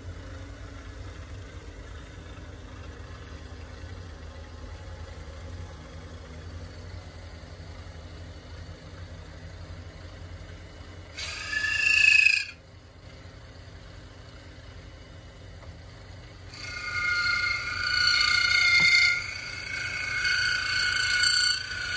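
G. Boley watchmaker's milling machine running, its belt-driven motor giving a steady low hum. About eleven seconds in, a loud high-pitched squeal lasts about a second, and from about sixteen seconds on a sustained high-pitched squeal comes and goes as the cutter works into the brass plate.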